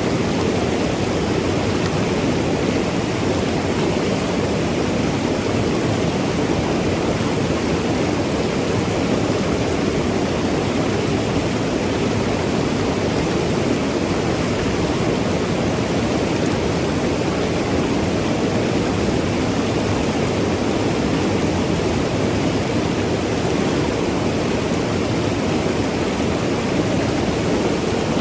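Mountain river rushing and gurgling over rocks, a steady, unbroken roar of flowing water.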